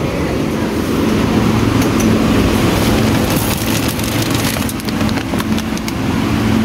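Steady low hum of a large store's background noise, with scattered rustles and clicks from a plastic bag of frozen chicken tenders being handled close to the microphone.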